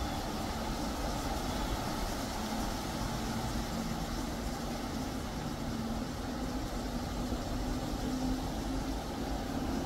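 Strong wind blowing across the microphone: a steady rushing rumble.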